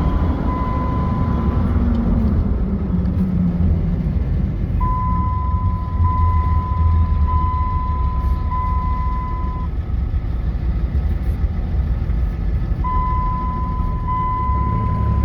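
Dodge pickup's engine and road noise heard inside the cab while driving: a steady low rumble, with the engine note falling over the first few seconds. A high, steady electronic beep sounds in repeated stretches from about a third of the way in, stops, and starts again near the end.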